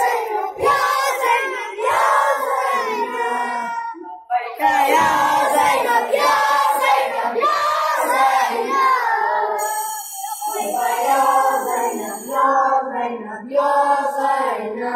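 A group of boys chanting an Urdu noha together, voices rising and falling in phrases with a short pause about four seconds in.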